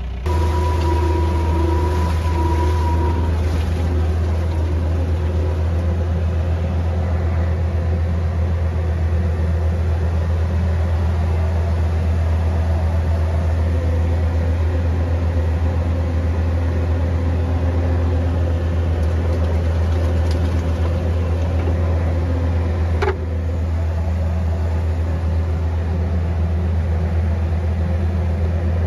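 Engine of a farm machine carrying a balled-and-burlapped tree, running steadily with a deep hum and a higher whine over the first few seconds. A single sharp clunk comes about 23 seconds in, after which it runs a little quieter.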